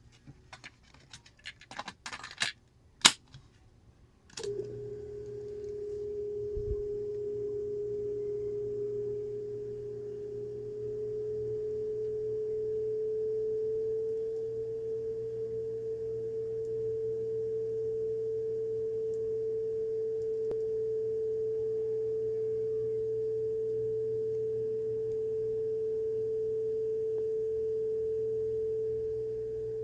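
A few clicks and knocks from handling the opened cassette player, then a steady single test tone from a speed-calibration test tape starts suddenly about four seconds in. Its pitch creeps up a little over the next several seconds as the motor speed trimmer is turned, then holds at the tape's 440 Hz reference, the sign that the player is running at correct speed.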